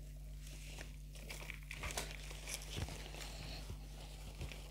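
Hands scooping and pressing potting soil around a houseplant in a plastic pot: faint rustling and crumbling with scattered small clicks.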